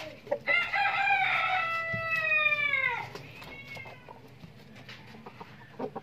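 A rooster crows once: one long call that begins about half a second in, holds its pitch for over two seconds, then drops away with a faint tail.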